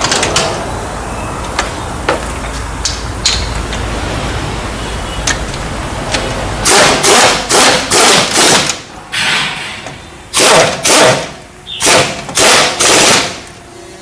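Pneumatic impact wrench firing in about ten short bursts in the second half, running bolts in while the brake assembly goes back together. A steady low hum runs before the bursts start.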